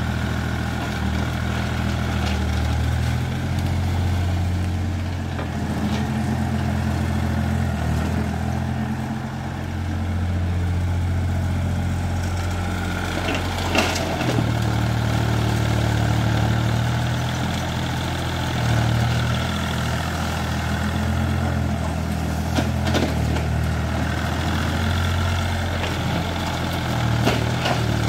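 Heavy diesel engine of an earthmoving machine running through the clearing work, its low note stepping up and down as the load changes. A few short sharp cracks cut in, the strongest about halfway through.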